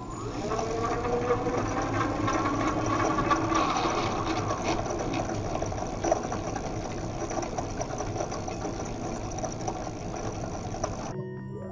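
Ebike geared hub motor spinning up with a rising whine over the first couple of seconds, then running steadily with a rattly grinding whine; the noise comes from bearings that water got into and rusted. It cuts off abruptly near the end.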